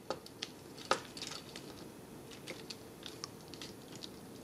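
Small plastic clicks and ticks from a Transformers Legends Class Windcharger action figure's joints and parts being adjusted by hand, irregular and light, with the sharpest click about a second in.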